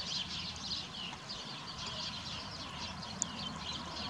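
Many small birds chirping together: a steady chorus of short, overlapping chirps, over a low background rumble.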